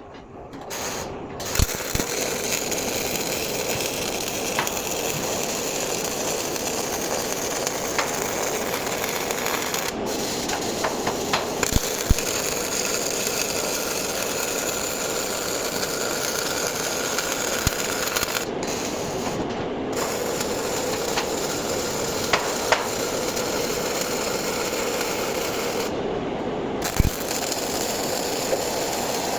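MIG welding arc crackling steadily as a bead is laid on H-beam steel, with scattered sharp pops of spatter; it strikes up about half a second in.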